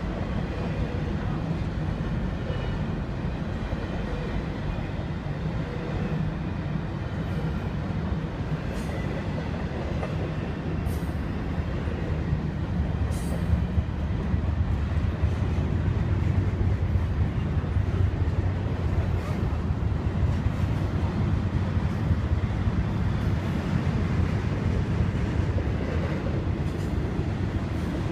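A freight train's double-stack container cars rolling past in a steady low rumble, growing a little louder after the middle, with a few short high clicks from the wheels and rails.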